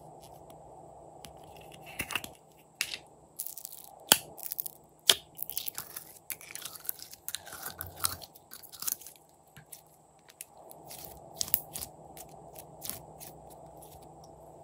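Glittery pink slime being pulled out of its plastic jar and handled, giving irregular sticky clicks and crackles. Two sharper snaps come around four and five seconds in, and the clicks thin out near the end.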